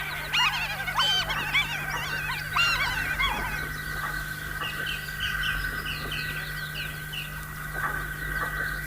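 Birds calling: a flurry of quick squawks and chirps for the first few seconds, then a run of short, evenly spaced chirps about two a second. A steady high tone runs underneath.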